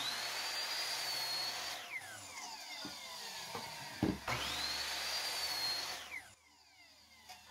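Ryobi sliding compound miter saw run twice to cut short lengths of wood: each time the motor whine rises quickly to a steady high pitch, holds for about two seconds, then falls away as the blade spins down after the trigger is let go. A few light knocks come between the two cuts as the wood is moved.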